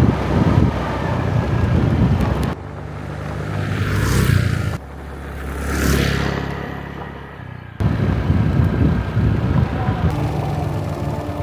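Motorbike riding noise with a low rumble, broken by two short edited shots in which a vehicle passes close by, each swelling louder and then cut off abruptly. The steady riding rumble returns in the last few seconds.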